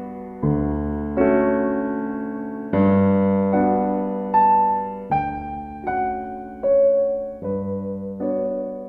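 Background music: piano chords and single notes played slowly, each struck and left to fade.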